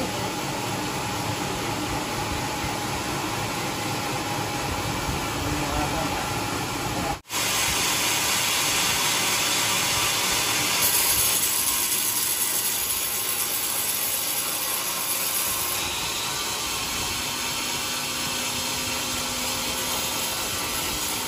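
A sawmill saw running and cutting through coconut wood as a steady, loud rushing noise. It breaks off for an instant about seven seconds in, then continues with more hiss.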